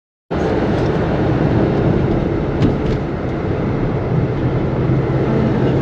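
A car being driven: steady road and engine noise with a low hum, cutting in suddenly just after the start.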